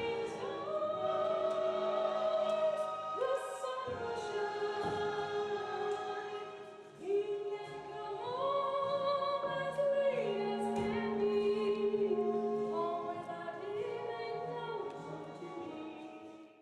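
Several voices singing together in harmony, holding long, sustained notes.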